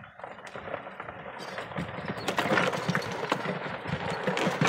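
A small open utility vehicle driving off over a dirt track: a rumble of running and tyres on dirt, with irregular knocks and rattles. It gets louder about two seconds in as it picks up speed.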